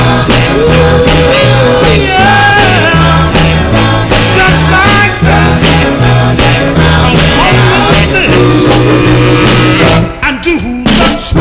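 Upbeat rock and roll song with singing over a steady bass line, dropping out briefly near the end.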